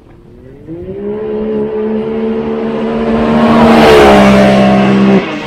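Can-Am Maverick X3's turbocharged three-cylinder engine on a full-throttle launch from a boost brake. The revs rise over the first second, then hold at a steady pitch as the car pulls away on its CVT, growing loudest about four seconds in before cutting off suddenly just after five seconds when the throttle closes.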